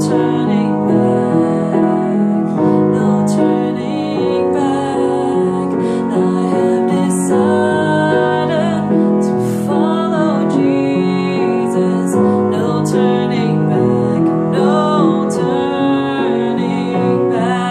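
Upright piano playing slow, sustained worship chords, the right hand holding the tonic and fifth of the key above a changing bass. A woman's voice sings the melody softly over it at times.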